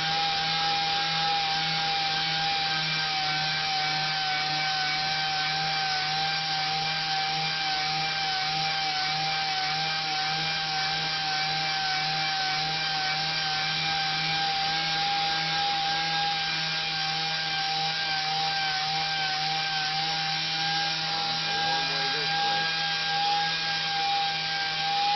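Random orbital (DA) sander running steadily, sanding a Corian solid-surface countertop to feather out a deep scratch, with a steady whine that wavers slightly.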